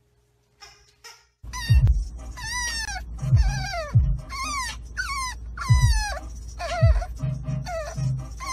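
French bulldog puppy whining: a series of high cries that fall in pitch, about one a second, starting about a second and a half in. Under them runs a steady low rumble from the moving car.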